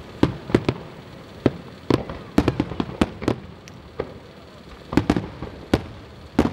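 Aerial fireworks shells bursting: an irregular series of about a dozen sharp bangs, some in quick pairs, with a short lull a little past halfway before the bangs resume.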